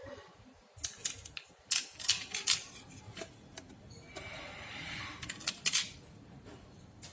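Sharp clicks and clacks of small hard parts and tools being handled while a Nokia X2-01 phone is worked on, with a scraping sound about four seconds in.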